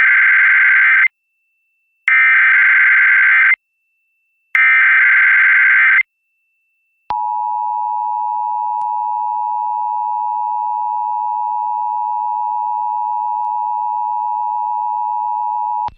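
Emergency Alert System SAME header: three bursts of rapid digital data tones, each about a second and a half long with a second's gap between them, the first already under way, encoding a Required Monthly Test. About a second after the third burst comes the EAS attention signal, a steady two-tone alert (853 and 960 Hz) held for about nine seconds.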